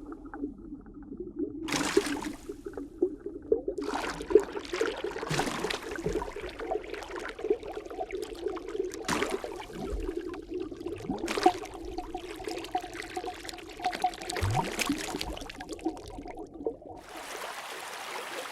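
Underwater bubbling and gurgling water: irregular bubble pops and short rising blips over a steady low drone.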